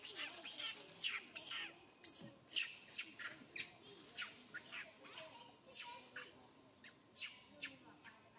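A string of short, high-pitched chirping calls, each with a quick upward sweep, repeated about twice a second.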